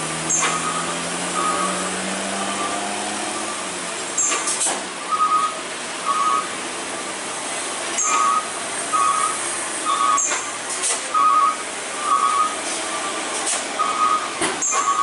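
Rain hissing steadily on the road, a truck engine revving up and fading in the first couple of seconds, and short whistle blasts about once a second, some doubled, from a traffic marshal's whistle.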